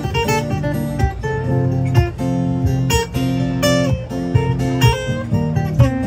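Two acoustic guitars strumming chords together in an instrumental passage, with a steady rhythm.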